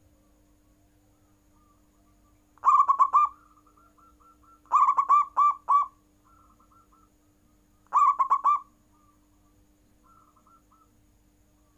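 Zebra dove (perkutut) cooing: three loud phrases, each a quick run of rolling, staccato coos, with softer coos in between.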